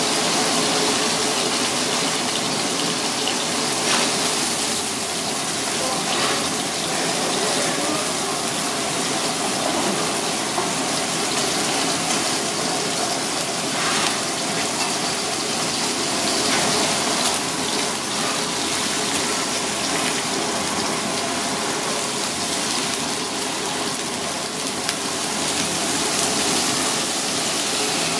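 Wrasse fillet frying in hot oil in a non-stick pan: a steady sizzle with a few sharper crackles.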